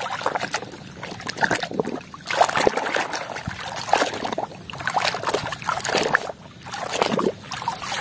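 Muddy water sloshing and splashing in a plastic basin as a hand scrubs a plastic toy fire truck in it, in irregular bursts.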